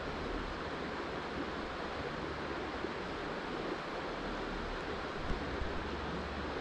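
Steady rushing of flowing river water, with a light wind rumble on the microphone and a small knock a little past five seconds in.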